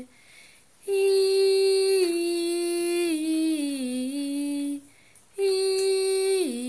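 A woman's voice singing a slow, simple children's tune in long held notes, in two phrases that each step down in pitch, with a short pause about five seconds in.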